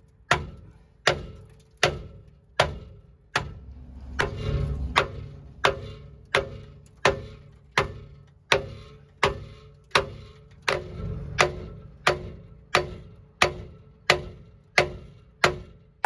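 A sharp click repeating at an even, clock-like pace, about four every three seconds, each with a short ringing tone after it. A low rumble swells twice underneath.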